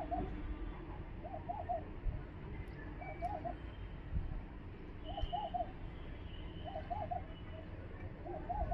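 A dove cooing a short three-note phrase over and over, six times, about every one and a half to two seconds, with faint higher bird chirps between.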